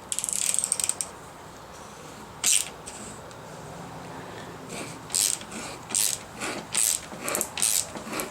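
Ratcheting gear wrench clicking as it turns a thread tap into a handlebar end: a burst of clicks at the start, another a couple of seconds later, then short bursts of clicks about every half second over the last few seconds as the wrench is swung back and forth.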